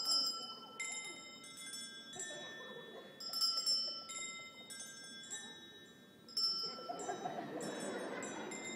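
A slow series of bright chime or bell notes at different pitches, struck one at a time about every half second to second, each ringing on, over a low crowd murmur that grows near the end.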